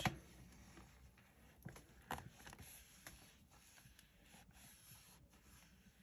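Near silence with a few faint taps and rustles of paper card being handled and positioned for stamping, the clearest two about two seconds in.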